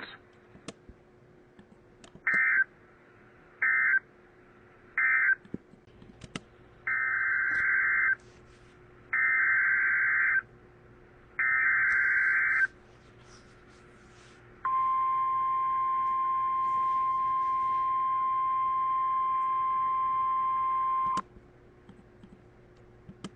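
Emergency Alert System (SAME) digital data bursts: three short screeching bursts that end the previous message, then three longer bursts of the next alert's header. A long steady single-pitch warning alert tone follows for about six seconds and cuts off abruptly.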